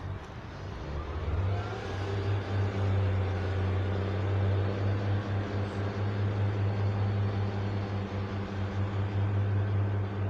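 Pacer diesel multiple unit pulling away from the platform: its engine comes up to power about a second in, with a brief rising whine, then runs with a steady low drone under load as the train moves off.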